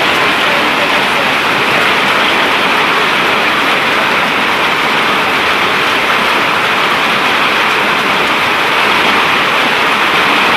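Heavy rain of a hailstorm falling in a steady, loud, even rush.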